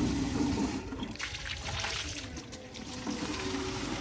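Water from a garden hose running into a plastic watering can, filling it.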